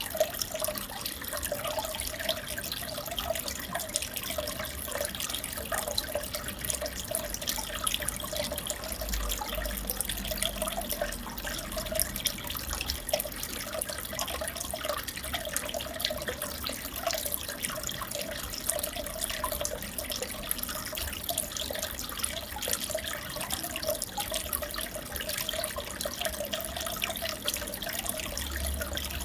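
Aquarium water trickling and bubbling steadily, with a constant patter of small drips and bubble pops.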